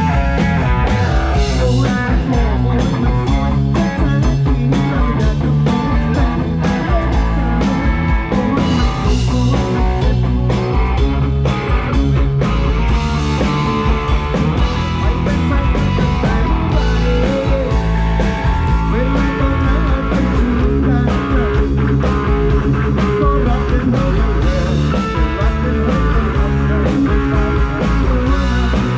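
A band playing loud, continuous rock music through a PA, with guitar, bass and a steady drum beat.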